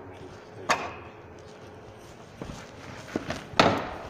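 Four dull knocks with rubbing in between as a paper towel is pressed and wiped against a whiteboard, the loudest knock near the end.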